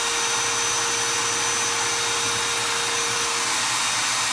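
Milwaukee M18 Fuel Gen 3 hammer drill running steadily at no load, a constant motor hum and hiss. The drill is running hot and drawing close to 6 amps with nothing on the chuck, which the owner takes for a defective drill.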